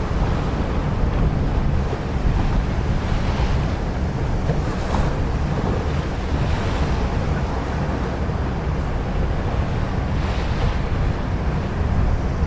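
Wind buffeting the microphone in a steady low rumble, with a hiss of wind and water that swells a few times.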